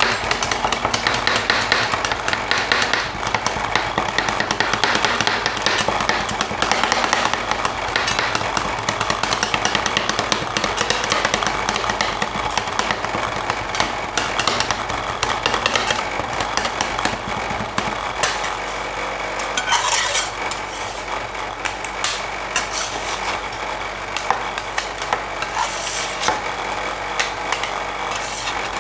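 Two metal spatulas chopping and scraping on the frozen steel plate of an ice cream roll machine, a dense run of quick metallic taps and scrapes as red dragon fruit is chopped into the cream base. A steady machine hum runs underneath.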